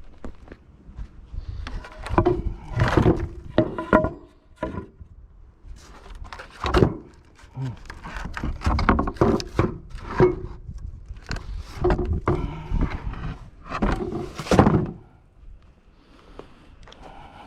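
A series of irregular knocks and thunks, some ringing briefly, with quiet gaps between them.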